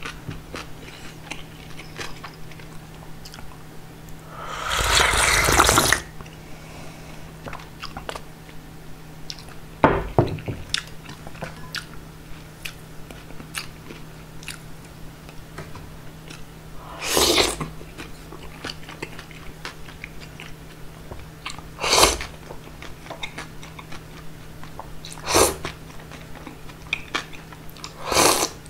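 Close-miked eating of cold soy-milk noodle soup: soft wet chewing clicks, with several loud slurps of noodles and broth. The longest slurp comes about five seconds in, and another near the end as the mouth is put to the rim of the bowl.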